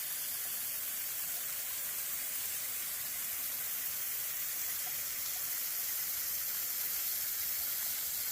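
A thin flow of water falling from a mostly frozen waterfall, making a steady, even splashing hiss.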